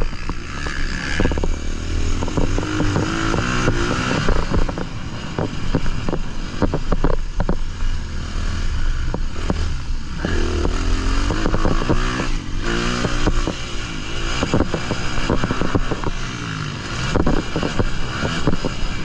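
Honda 250 motocross bike's engine revving hard and backing off over and over, its pitch rising and falling, with a steady stream of rattles and knocks from the bike over the rough track.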